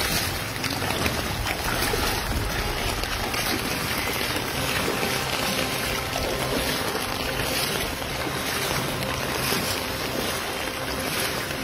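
Steady rushing of muddy floodwater flowing along a flooded lane and street.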